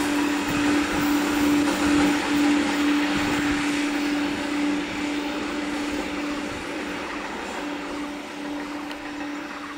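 Indian Railways EMU suburban train running along the track, with a steady hum over wheel-and-rail noise, fading gradually in the second half as the train moves away.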